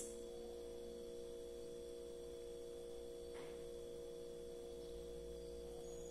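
Quiet room tone: a steady hum made of several faint, even tones, with one faint, brief rustle about three and a half seconds in.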